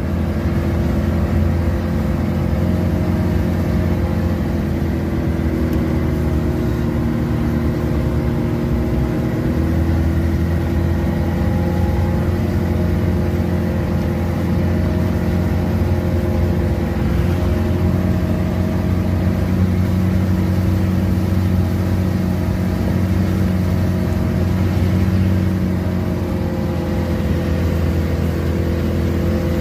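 Heavily loaded truck's engine running steadily on a long steep downhill, its pitch drifting slightly up and down, with the brakes starting to run hot.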